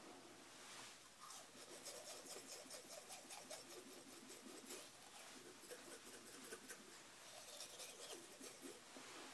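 Manual toothbrush scrubbing teeth with quick back-and-forth strokes, a faint scratchy brushing that starts about a second in.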